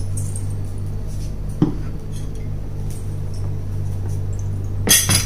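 A wine glass set down on a table with a light knock about a second and a half in, then a louder double clatter near the end as a plate with cutlery is put on the table, over a steady low hum.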